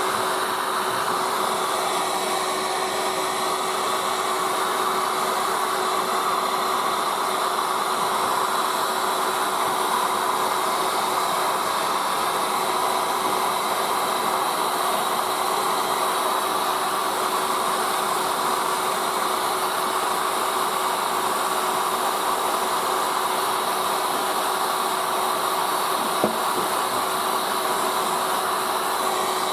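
Heat gun running steadily, its fan whirring and blowing hot air to soften old linseed-oil glazing putty, with one small click near the end.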